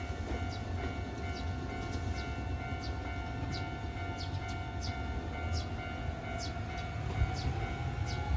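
Japanese level-crossing warning alarm ringing about twice a second over the low rumble of an approaching Nankai train.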